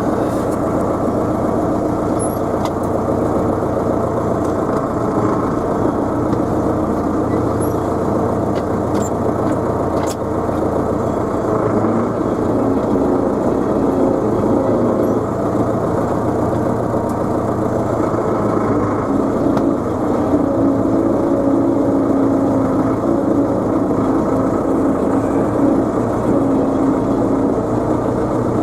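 Tractor engine running steadily, its pitch shifting a few times as the engine speed changes.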